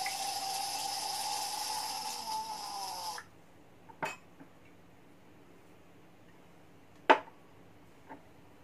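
Red wine pouring through a handheld wine aerator into a wine glass: an airy hiss with a steady whistling tone that sinks slightly and cuts off about three seconds in as the pour stops. Then a light click as the bottle is set down, and a sharp knock about seven seconds in as the aerator is stood on the wooden table.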